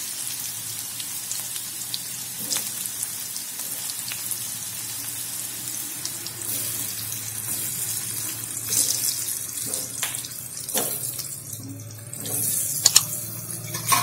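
Stuffed bitter gourd pieces sizzling in hot oil with a mustard-cumin-garlic-chilli tempering in a steel kadai as they are laid in one by one. A few knocks of pieces or a spoon against the pan, the loudest near the end.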